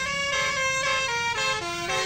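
Indonesian bus 'telolet basuri' musical horn playing a tune: a run of quick held notes that step in pitch about every quarter second and dip lower near the end.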